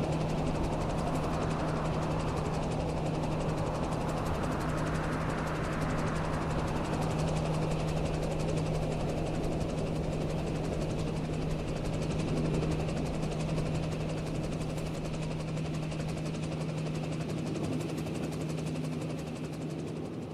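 Helicopter in steady flight, its engine and rotor giving a continuous drone over a steady low hum. It begins to fade right at the end.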